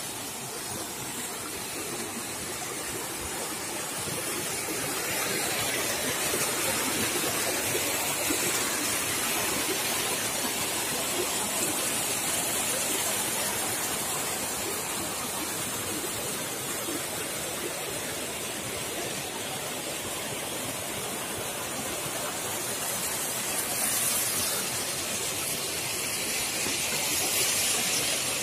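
Steady rush of a small waterfall and stream cascading between boulders.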